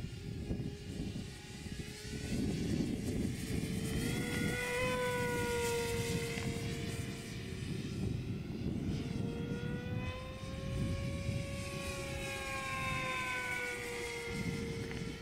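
Electric motor and propeller of a Quickie 500 radio-controlled model plane whining as it flies past overhead, the pitch swelling and bending as it passes, twice: about four seconds in and again from about ten seconds. A low rushing noise runs underneath.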